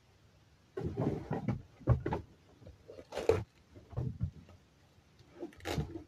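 Irregular handling noises: a run of knocks, scrapes and rustles as a plastic RC toy car is handled and a cardboard shipping box and its packaging are rummaged through. The noises start about three-quarters of a second in and are loudest around the middle and again near the end.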